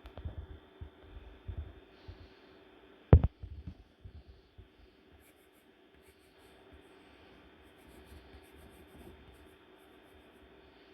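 Drawing sounds: a pen or pencil scratching and tapping on the drawing surface, busiest in the first four seconds, with one sharp knock about three seconds in, then fainter strokes.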